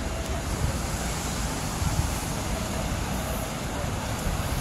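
Steady outdoor beach ambience: a continuous wash of noise, heavy in the low end, with faint distant voices.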